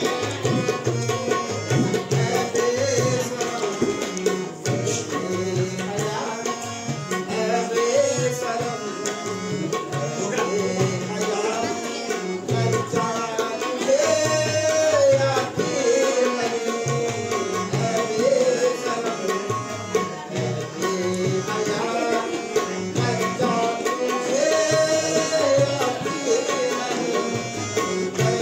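Tabla and harmonium playing live together: a steady rhythmic tabla pattern under a harmonium melody.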